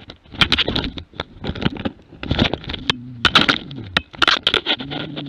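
Close scuffling and rustling as a dog carrying a body-mounted camera moves through forest undergrowth. About three seconds in, a low, steady growl sets in as a wolf confronts the dog face to face; it dips in pitch, breaks off briefly, and starts again near the end.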